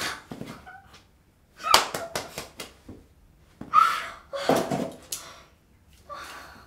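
A woman's excited, breathy squeals and gasps in about four short bursts, mixed with rustling movement and a few sharp slaps or claps of her hands.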